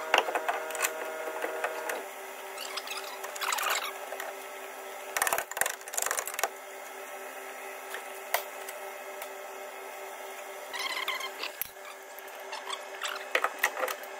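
Scattered metallic clunks, knocks and scrapes of a new steel leaf spring being handled and offered up into its shackle and hanger, with a tight run of clunks about five seconds in and more near the end. A steady faint hum sits underneath.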